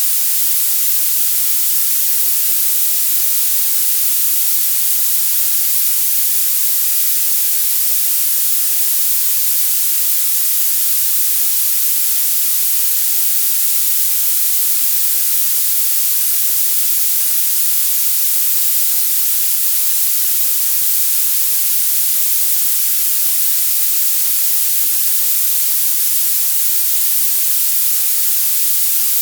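Violet noise: a steady, unchanging hiss weighted heavily toward the very highest pitches, with almost no low end.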